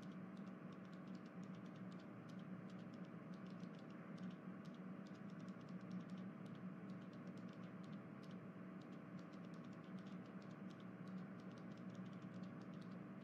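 Faint steady hum and hiss with many soft, irregular clicks scattered throughout.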